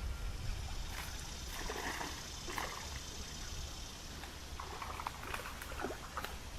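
Creek water splashing and trickling in irregular bursts over a low steady rumble.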